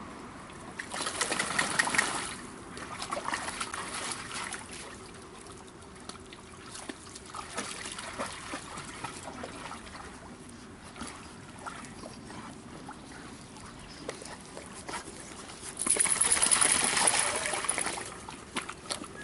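Water splashing and trickling, in two longer rushes about a second in and again near the end, with scattered small splashes and clicks between.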